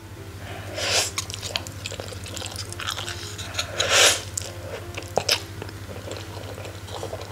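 Close-miked mouth sounds of a person eating fried instant noodles: wet chewing with many small clicks. Two louder slurps or sucks come about a second in and about four seconds in, as noodles are drawn in from chopsticks and a spoon.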